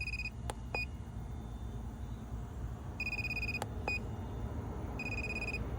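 Handheld TPMS tool beeping while it sends an activation signal to a tire pressure sensor: a longer high beep followed by a short one, repeated three times, with a few faint clicks over a low steady hum.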